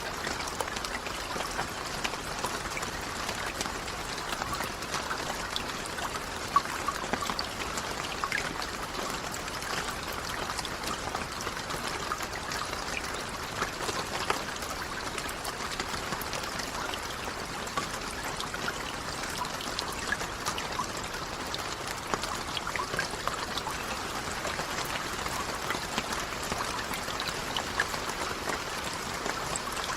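Steady rain: a constant wash of water sprinkled with many small, distinct drop impacts, even throughout.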